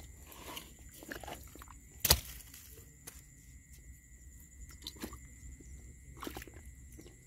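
A hand digging in a hole in dry, cracked mud, scraping and pulling out clods of earth: soft scattered scrapes and crumbling, with one sharp knock about two seconds in.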